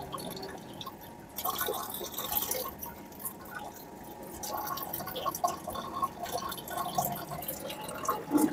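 Water dripping and trickling from a PVC well-water filter tank during backwash, a small, weak flow.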